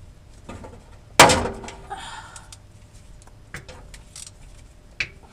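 A loud metal clank about a second in that rings briefly, followed by a few lighter clinks and knocks of hand tools on metal while bolts are being removed.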